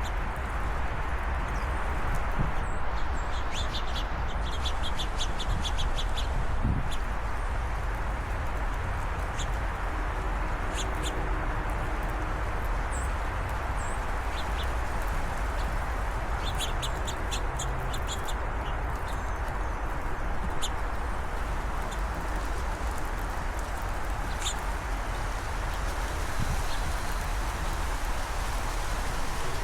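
Small birds chirping in quick runs of short, high notes over a steady background noise.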